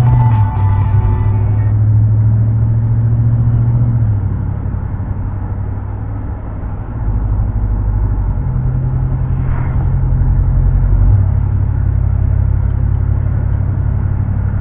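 Truck engine and tyre noise heard from inside the cab: a steady low drone that eases off about four seconds in and grows louder again about three seconds later.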